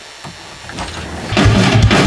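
A rock track with drum kit and guitar starts up, quiet at first and then loud and full from just over a second in, with kick drum hits and a steady beat.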